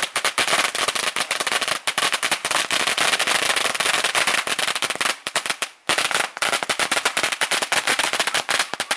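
A long string of red paper firecrackers going off in a rapid, continuous chain of sharp bangs, with one short break a little over halfway through.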